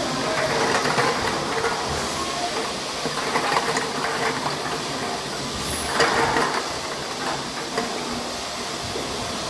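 Cough syrup bottle-filling line running: continuous mechanical clatter and hiss, with a brief louder burst of hiss about six seconds in.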